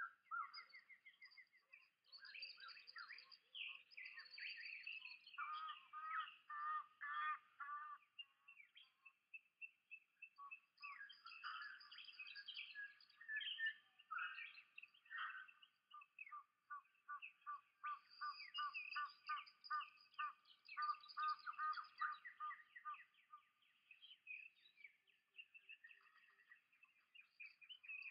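Faint birdsong: several birds chirping and singing, with runs of quick repeated notes.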